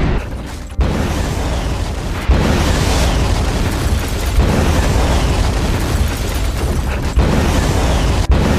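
Explosion sound effects from a film: a string of booms, each starting suddenly, running into one another as a continuous heavy rumble.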